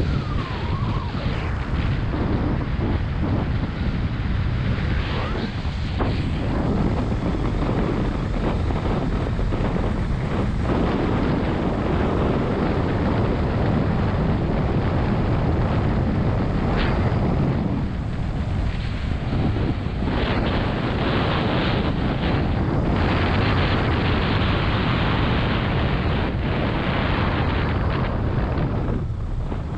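Wind rushing over the microphone in the open back of a moving pickup-truck taxi, with the truck's road and engine noise underneath, steady throughout.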